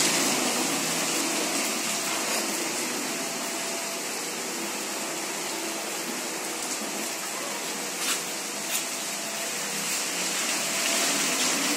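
Heavy rain falling steadily on a paved street and pavement. A couple of short knocks about eight seconds in.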